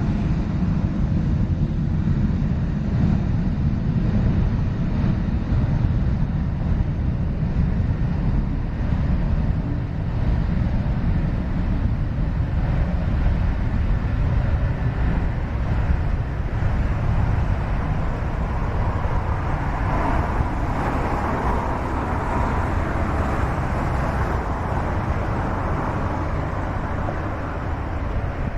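Steady low rumbling vehicle noise, with a hiss that grows stronger about two-thirds of the way in.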